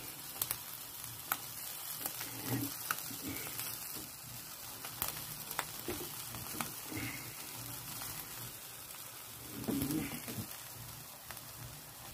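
Sauce-basted chicken fillets sizzling on an electric grill: a steady hiss with scattered crackling pops.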